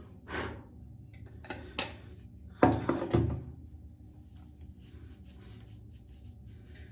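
Handling noise from objects worked close to the microphone: a few light knocks, then a louder cluster of knocks and rubs a little under three seconds in, followed by faint rustling.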